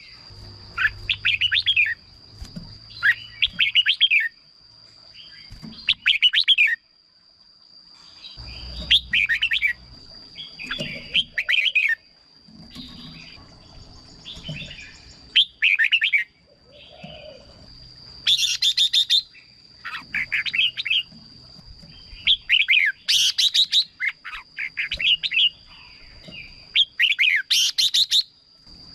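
Red-whiskered bulbul singing short, bubbly whistled phrases, one every second or two, over a thin steady high tone.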